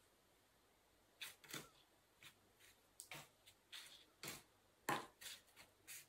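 Hands rustling and brushing a hand-carded cotton batt on a burlap cloth while preparing to roll it onto a wooden dowel. Soft, scattered brushing and tapping sounds start about a second in, the loudest about five seconds in.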